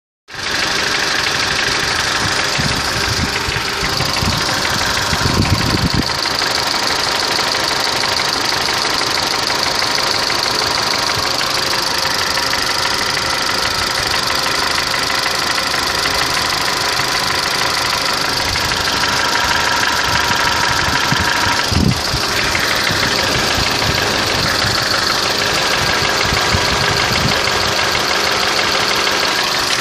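Mitsubishi 4G63 four-cylinder engine running with a knock whose cause is unknown to the owner, with two brief louder surges about five and twenty-two seconds in.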